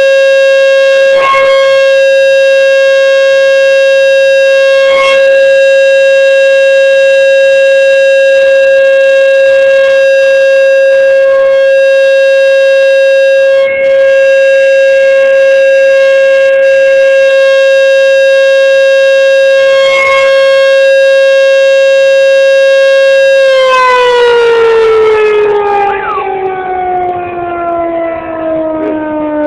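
American Signal T-128 rotating tornado siren sounding a very loud, steady tone during a routine test. About 24 seconds in it winds down, its pitch falling steadily.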